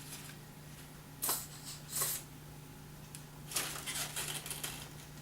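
Faint handling sounds of a sandwich being dressed: a few soft brief rustles and brushes, two near the start and a cluster about three and a half seconds in, over a steady low hum.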